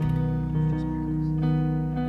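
Worship music played on guitar, steady chords with no singing.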